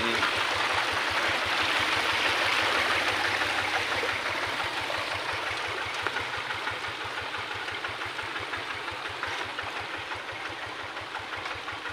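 Water rushing over a small irrigation weir, loudest at first and then easing, over the steady low beat of a hand tractor's single-cylinder diesel engine idling.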